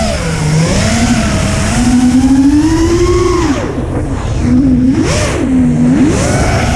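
FPV quadcopter's brushless motors and propellers whining, the pitch climbing and falling with the throttle: a steady climb, a sharp drop about three and a half seconds in, then quick punches back up. Wind rumbles on the onboard camera's microphone underneath.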